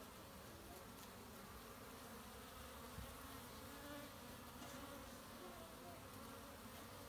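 Honey bees flying in and out of a hive entrance: a faint, steady buzz of many wings, with single bees' tones wavering as they pass close. A light tick about three seconds in.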